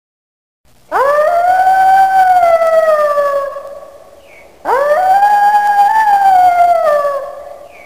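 Wolf howling twice. Each howl is one long call that rises quickly, holds its pitch, then slowly falls and fades.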